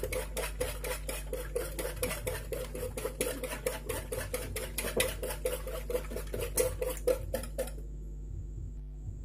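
Wire whisk beating eggs in a large enamel basin until evenly mixed: a quick, even clatter of the whisk against the bowl at about four to five strokes a second. It stops about three-quarters of the way through.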